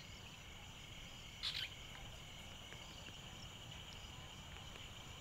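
Faint, steady high chirring of an insect chorus, with one short, louder call about a second and a half in.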